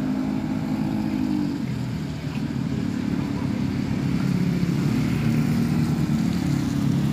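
A vehicle engine running steadily with a low, even drone.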